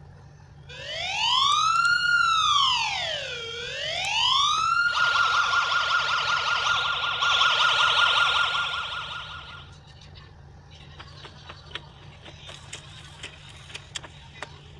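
Electronic emergency-vehicle siren sound effect: a slow wail rising and falling in pitch, switching about five seconds in to a fast warble, and cutting out near ten seconds. Faint scattered clicks follow.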